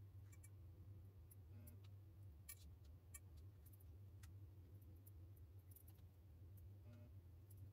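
Near silence: a steady low hum with a few faint, scattered clicks and taps.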